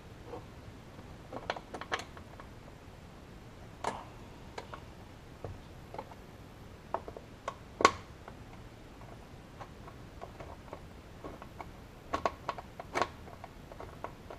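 Scattered light clicks and taps of an Allen wrench and hands working the screws and plastic air-box cover, with one sharper knock about halfway through.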